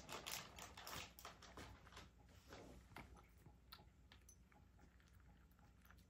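A cat eating wet food mixed with a little dry kibble from a ceramic bowl: faint chewing with small irregular clicks, busier in the first couple of seconds, then quieter.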